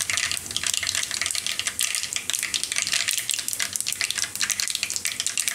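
Cumin seeds frying in hot oil in a kadai: a steady, dense crackle of tiny pops. This is the tempering stage, with the seeds browning in the oil.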